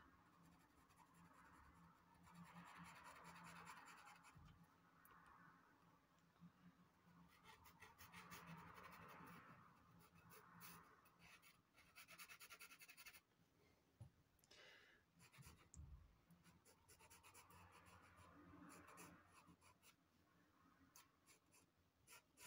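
Faint scratching of a Derwent pastel pencil drawing on Clairefontaine Pastelmat paper, coming in several spells of strokes with short pauses between them.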